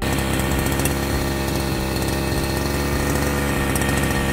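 Petrol two-stroke brush cutter (Demon strimmer) idling steadily while lying on the ground, left running to warm up after starting.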